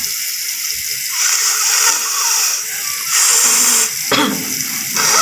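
Water splashing and pouring in three louder bursts over a steady rush of water.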